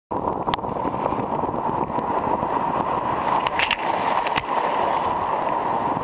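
Breaking sea surf churning and hissing right around the camera in the foam. A few sharp clicks stand out, near the start and twice more in the second half.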